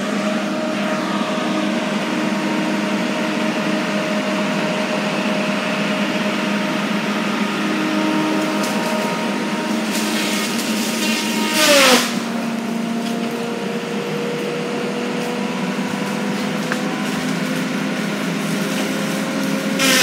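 Engine running steadily with a droning hum. About ten seconds in, a louder rushing noise swells for a couple of seconds, and the engine's pitch drops and settles lower.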